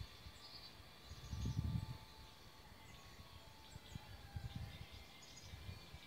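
Wind buffeting the microphone in irregular low rumbles, the strongest about a second and a half in, over faint bird chirps and insect sounds.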